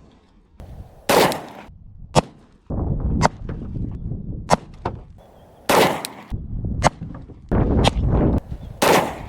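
A series of gunshots fired one at a time at irregular intervals, each a sharp crack followed by a brief echo.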